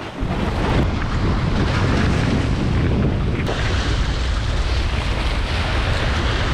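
Steady wind rumble on the microphone over surf washing against jetty rocks.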